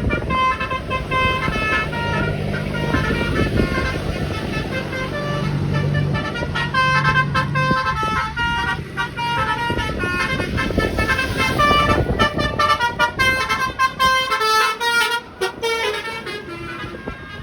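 Indonesian bus 'telolet' multi-tone horns playing quick melodic runs of short notes, with a low steady drone underneath between about two and eight seconds in.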